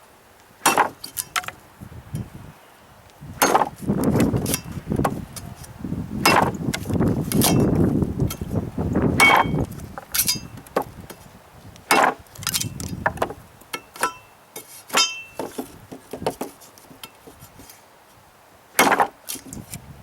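Cold Steel Heavy Machete chopping into wood: a series of irregular sharp chops, some with a brief metallic ring, the sharpened edge cutting in rather than bouncing off. Gusts of heavy wind buffet the microphone in between.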